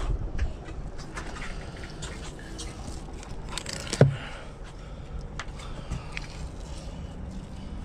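Fillet knife cutting and scraping through a yellowfin tuna's flesh along the backbone on a cutting board. There are a few light taps and scrapes, and one sharp knock about four seconds in, over a steady low background rumble.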